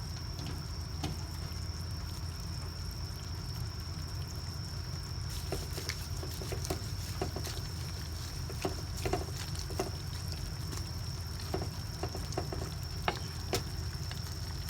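Scattered soft clicks and taps of kitchen utensils against a cooking pot while the soup is being tended, over a steady low hum and a thin high-pitched whine.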